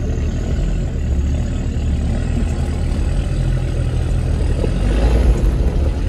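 Land Rover Discovery Td5's five-cylinder turbodiesel engine running under load off-road, with a faint high whine slowly rising in pitch and the sound growing slightly louder toward the end.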